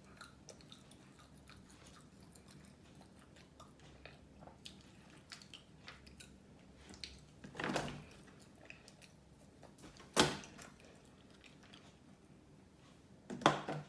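A person chewing fried chicken, with soft, wet mouth sounds and small clicks. Three louder sharp sounds stand out: one around the middle, one a couple of seconds later and one near the end.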